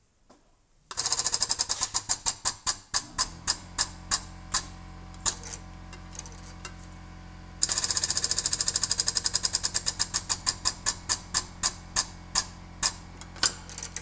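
Pedal-operated hydraulic pump driving a cable crimper, cycling twice: each time a fast clatter of pump strokes that spread out and slow as pressure builds on the copper lug in the die, over a steady low hum. The first run starts about a second in, the second a little past halfway.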